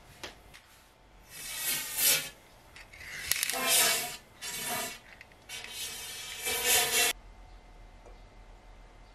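Scraping in four rough strokes, a thin rod rubbing inside a bicycle frame's seat tube. The last stroke cuts off suddenly.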